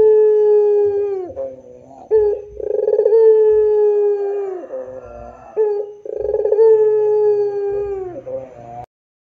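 Barbary dove (puter) cooing in long, drawn-out 'pelung' coos: three in a row a few seconds apart, each opening with a short note, then holding one pitch and dropping off at its end. The sound cuts off suddenly near the end.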